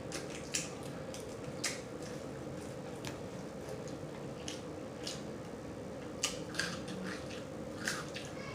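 Close-up chewing with wet mouth smacks: a dozen or so irregular sharp clicks over a faint steady hum.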